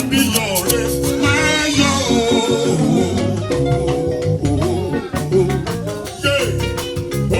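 Music with singing, plucked guitar, a bass line and steady rattling percussion.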